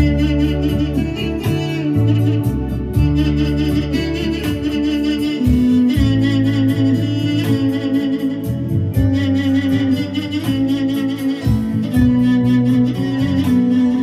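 Background music led by a plucked string instrument, over sustained bass notes that change every couple of seconds.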